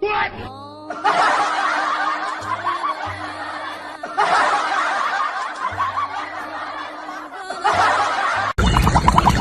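Laughter in three long stretches over background music, broken by short pauses; near the end it cuts abruptly to a different sound.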